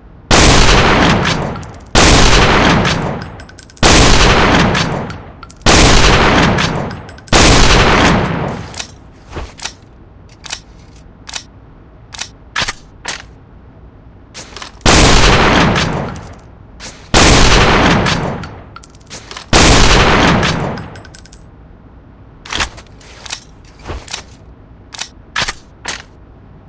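Mosin-Nagant bolt-action rifle firing. There are five loud shots about two seconds apart, each with a long echoing tail. A string of small metallic clicks and clacks of the action being worked follows. Then come three more shots and more clicks.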